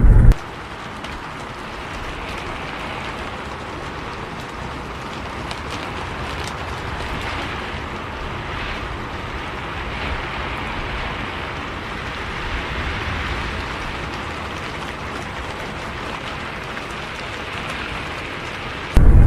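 Steady rain with scattered sharp drop ticks and a faint low rumble underneath. Near the end a much louder low vehicle rumble cuts in suddenly.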